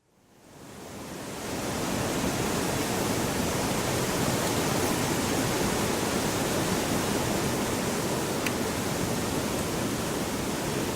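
Open hillside ambience: a steady, even rushing noise that fades in over the first two seconds and then holds level.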